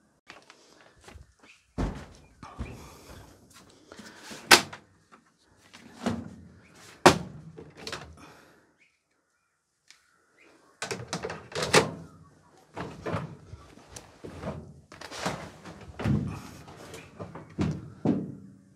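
Sharp thunks and knocks, then, after a brief silence about nine seconds in, a quick run of thuds, clunks and rustling as wet washing is loaded by hand into the drum of a front-loading clothes dryer.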